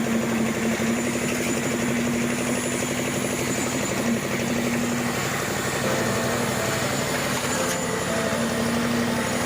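An engine running steadily at a constant speed, with a dense, even mechanical rattle.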